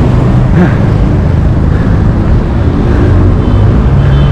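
Loud, steady wind rumble on a GoPro action camera's microphone while riding a mountain bike on the road.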